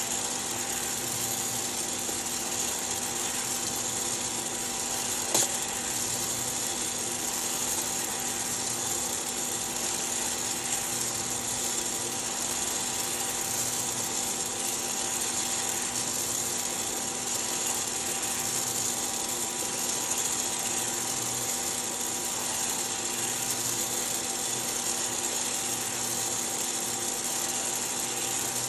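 Hottop home coffee roaster running its cooling cycle: the cooling fan and tray-stirring motor run steadily with a hum and hiss as the roasted beans are swept around the cooling tray. A single sharp click about five seconds in.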